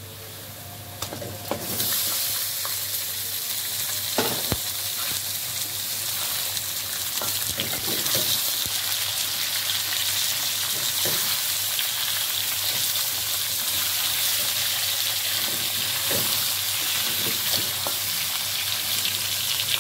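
Raw chicken pieces sizzling in hot oil on fried onions in a metal pan. The sizzle jumps up sharply about two seconds in as the chicken goes in and then holds steady, with a wooden spatula scraping and knocking against the pan now and then.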